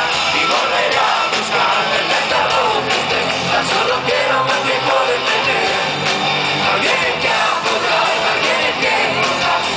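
Metal band playing live, heard from the audience: electric guitars and drums with a lead singer's voice over them.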